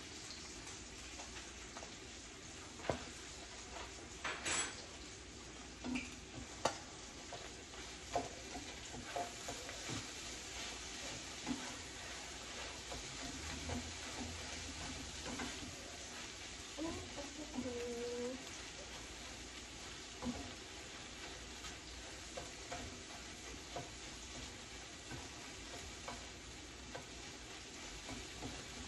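Scrambled eggs sizzling steadily in a nonstick frying pan, with irregular clicks and scrapes of a spatula stirring and turning them.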